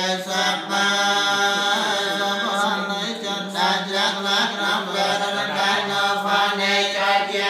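Theravada Buddhist monks chanting together on one steady low pitch, a continuous droning recitation.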